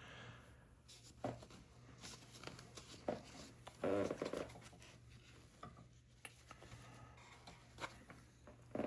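Metal Zippo lighters being handled: scattered light clicks, taps and rubbing, with a few slightly louder knocks.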